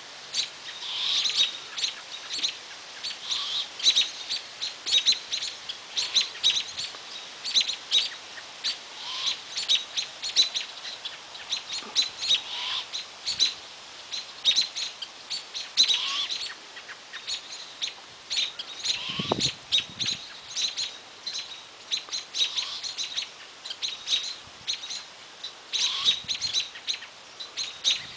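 Small birds chirping rapidly and continuously in high, quick notes, with fainter short rising calls recurring every second or two. About nineteen seconds in, a single brief low sound falls steeply in pitch.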